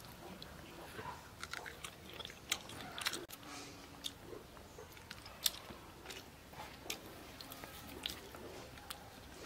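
A person chewing a mouthful of rice and fish curry eaten by hand: irregular wet clicks and smacks of the mouth.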